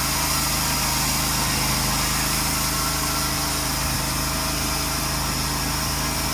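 Sawmill machinery running steadily, an engine drone that holds at an even level without change.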